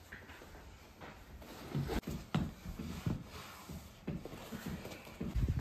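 Someone handling a backpack and walking across a floor: rustling, a few light knocks and soft footsteps, starting about two seconds in.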